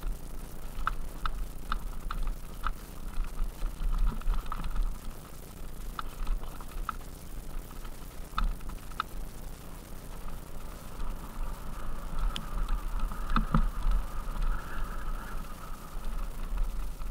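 Mountain bike riding downhill over a loose, stony dirt track: wind rumbling on the microphone and tyres crunching over gravel, with scattered sharp clicks and rattles from the bike and stones.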